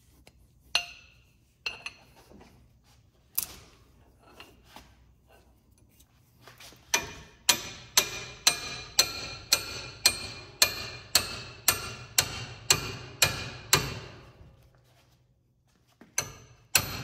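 Hammer striking a steel pickle fork wedged under a tie rod end, driving it in to pop the tapered ball stud out of the steering knuckle. A few separate knocks come first, then a steady run of about fifteen ringing metal blows, about two a second, from about 7 to 14 seconds in.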